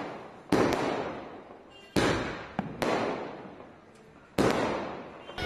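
Aerial fireworks bursting overhead: three loud bangs about two seconds apart, with a smaller one between the second and third, each dying away slowly.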